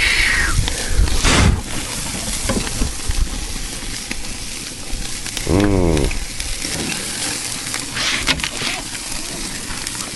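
Charcoal grill burning with apple wood, a steady hissing with scattered crackles and pops. About halfway through, a single drawn-out call rises and falls in pitch over it.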